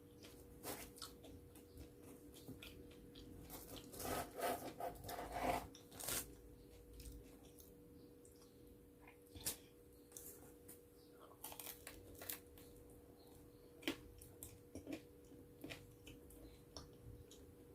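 A person biting and chewing crunchy food, with scattered short crunches and a denser run of them about four to six seconds in, over a faint steady hum.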